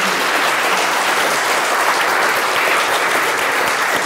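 Audience applause: a roomful of people clapping steadily.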